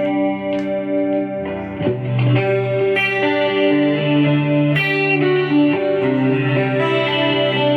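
Electric guitar with DiMarzio Dreamcatcher and Rainmaker pickups, both pickups selected, playing held chords and ringing notes on a clean tone with chorus and delay from a Boss GT-100 multi-effects unit.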